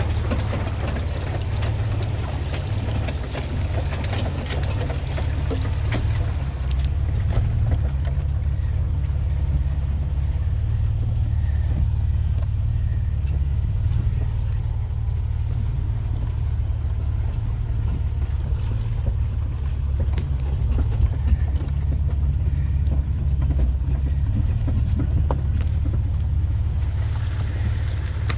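Four-wheel-drive vehicle driving slowly, its engine a low, steady drone. Splashing water and hiss over the first seven seconds or so, fading out and returning just before the end, as the vehicle goes through deep water.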